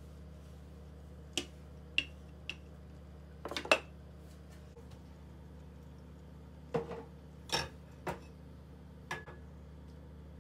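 Kitchen handling sounds: about eight sharp knocks and clinks of cookware being set down and moved about, one of them a black frying pan on a gas stove, the loudest a little over three seconds in. A steady low hum runs underneath.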